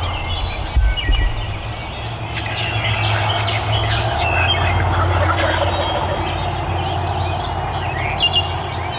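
Songbirds chirping and singing, over a steady low hum. A couple of dull bumps come about a second in.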